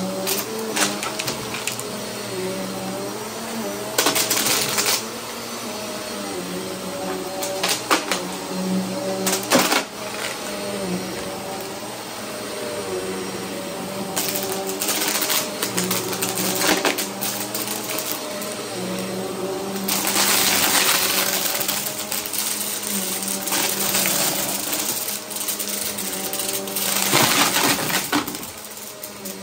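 Upright bagless vacuum cleaner running over carpet with a steady motor hum, while small debris rattles up into the clear dust bin in repeated short bursts. A longer, louder rush of suction noise comes about two-thirds of the way through.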